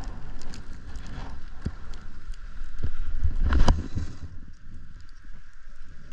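Snowboard riding over snow, with wind rumbling on the camera microphone and scattered knocks; a louder scrape comes about three and a half seconds in, then the hiss dies down.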